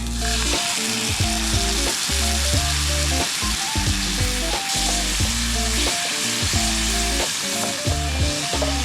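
Background music with shifting bass notes and chords over a steady hiss.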